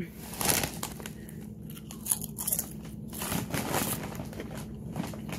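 Mouthfuls of Lay's potato chips being crunched and chewed close up, in a few irregular bursts of crunching.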